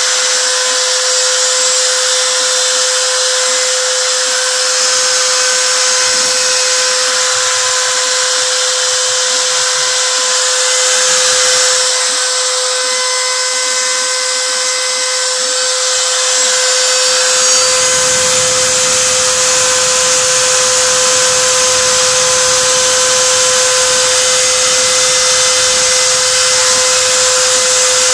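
CNC router spindle running with a steady, high whine while engraving. About 17 seconds in, a low rumble joins it and keeps on.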